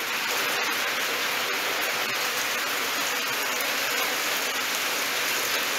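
Heavy rain falling steadily: an even hiss with a few scattered drop ticks.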